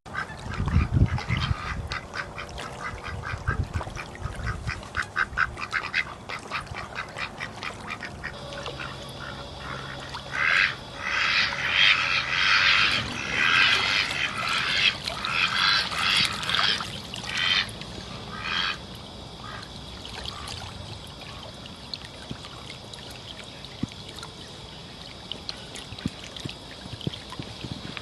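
A chorus of rapid, repeated animal calls, loudest in a run of bursts from about ten to nineteen seconds in.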